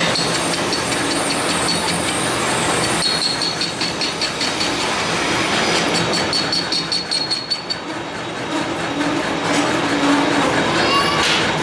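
Metal lathe running with a crankshaft spinning in its chuck as it is turned: a steady mechanical clatter, with a thin high whine in the first half and a fast, even rattle in the second half.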